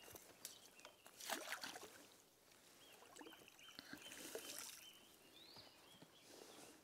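Faint splash and water sounds of a freshly caught fish being put back into the lake, the main splash a little over a second in, then quieter water noise with a few faint high chirps.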